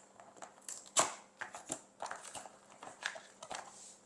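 Packaging being handled while a pot is unwrapped: irregular rustling and crinkling with scattered small taps and knocks, the sharpest about a second in.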